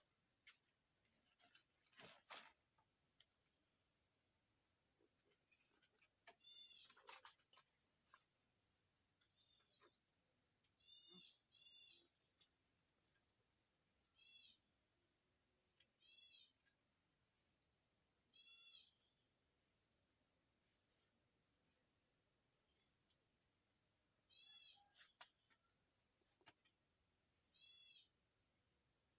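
Steady high-pitched drone of insects, crickets or cicadas, with a bird's short chirping calls repeated every few seconds and a few faint clicks.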